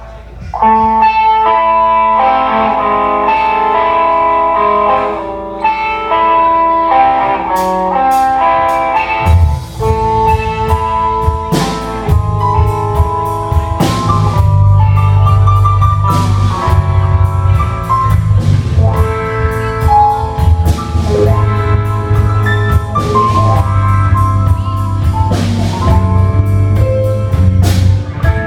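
Live rock band playing an instrumental passage. A melody of single notes, likely on guitar, plays alone at first. About nine seconds in, bass and drum kit come in with a steady beat.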